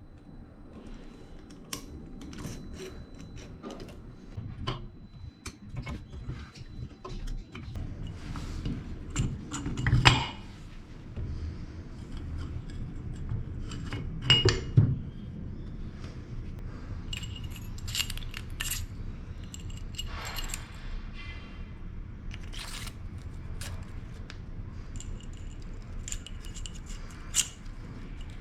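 Metal tools and engine parts clinking and clattering on a workbench during an engine strip-down, with scattered sharp clicks and two louder knocks, about 10 and 14 seconds in.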